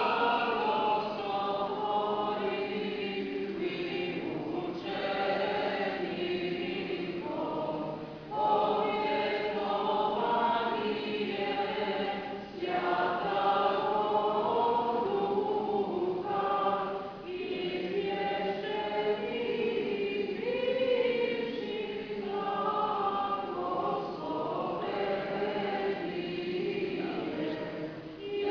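A choir of Orthodox nuns sings liturgical chant a cappella. The singing comes in phrases of a few seconds, each separated by a brief pause.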